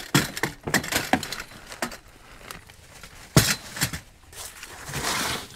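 Camping gear being handled and stowed: a quick run of clinks and knocks, one sharp knock about three and a half seconds in, then a scraping, rustling stretch near the end.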